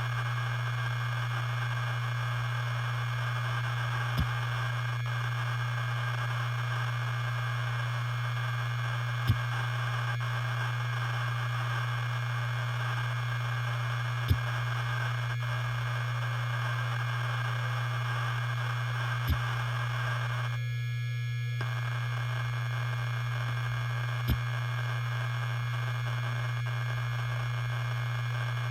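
Helium-filled hard disk drive running: a steady low hum with a short click about every five seconds.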